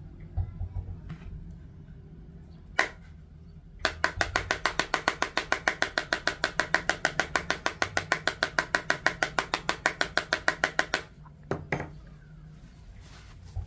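A metal tool scraped rapidly back and forth across a Samsung Galaxy A04's surface in a scratch test, about seven even strokes a second for some seven seconds. It follows a single sharp click, and a couple of knocks come after it.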